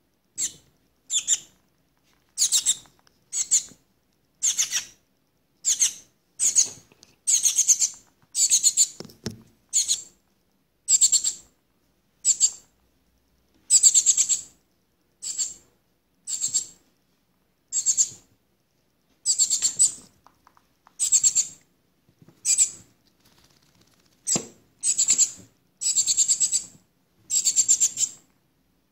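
Shiny cowbird fledgling giving harsh, high-pitched begging calls over and over, about one a second and sometimes two in quick succession, as it gapes for food.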